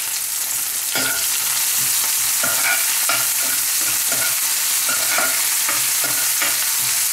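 Sliced garlic, shallots and curry leaves sizzling in hot coconut oil in a nonstick frying pan. About a second in, a spoon starts stirring and scraping them round the pan in regular strokes, about two to three a second.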